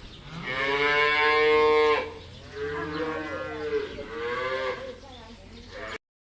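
Cow mooing: one long, loud moo followed by two shorter moos, then the sound cuts off abruptly near the end.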